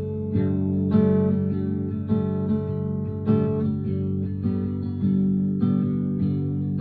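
Background music: acoustic guitar playing notes and chords, with a fresh plucked attack about every half second to second.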